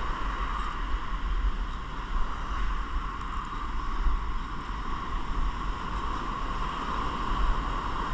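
Wind buffeting the microphone as a fluctuating low rumble, over the steady wash of ocean surf breaking on the beach.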